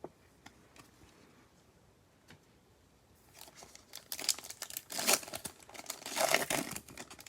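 A Prizm basketball card pack wrapper being torn open and crinkled. It starts about three seconds in as a dense crackle that is loudest near the end, with a few faint clicks before it.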